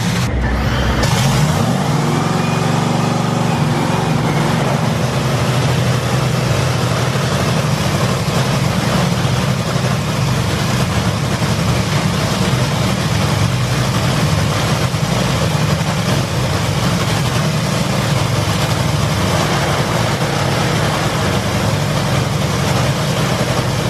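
Top Fuel dragster's supercharged nitromethane V8 running a pit warm-up, loud and steady, with the pitch briefly rising and falling about three seconds in.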